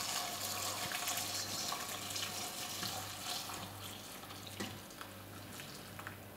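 Hot sugar syrup pouring in a stream from a stainless steel saucepan over orange segments in a steel bowl, a steady splashing pour that grows quieter as the stream thins toward the end. One light tap about four and a half seconds in.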